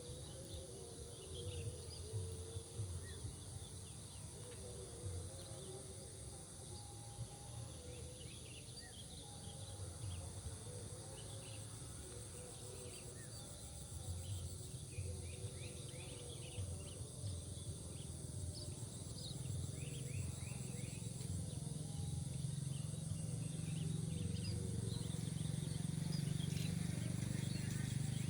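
Small birds chirping in short scattered calls over a steady high insect drone, with low rumbling that grows louder in the second half.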